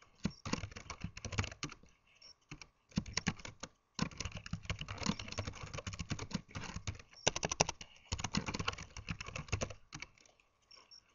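Typing on a computer keyboard: quick runs of keystrokes broken by short pauses, the typing dying away near the end.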